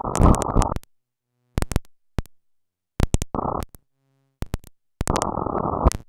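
Harsh digital glitch noise: bursts of dense static, about three in all, that switch on and cut off abruptly, broken up by sharp clicks and stretches of dead silence.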